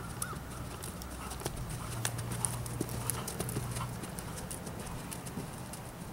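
Hoofbeats of a horse moving over a sand arena: a run of short, uneven thuds and clicks.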